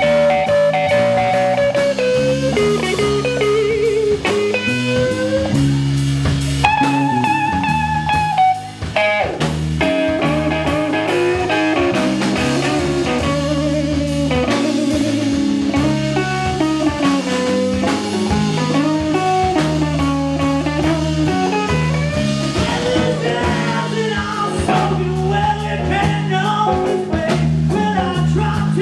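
Live blues band playing an instrumental passage: lead electric guitar playing wavering, bending melodic lines over bass guitar and drum kit, with a brief break about eight and a half seconds in.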